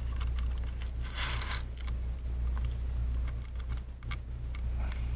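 Gloved hands handling small parts on an opened iPad: a short rustle about a second in and a few faint taps and ticks, over a steady low hum.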